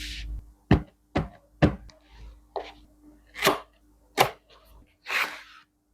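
Packaging handled while a keyboard box is unboxed: three sharp knocks about half a second apart, then a few short scrapes and rustles, the last and longest near the end.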